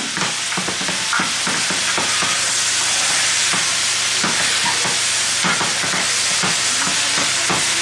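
Sliced peppers, onions, mushrooms and apple sizzling in a skillet, cooking down soft, while metal tongs toss them with many quick clicks and scrapes against the pan.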